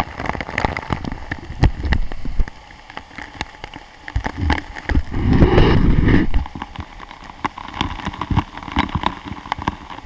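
Spray from a large, heavy waterfall pattering on and around the camera: many close drops striking near the microphone over the rush of falling water, louder for about a second around five seconds in.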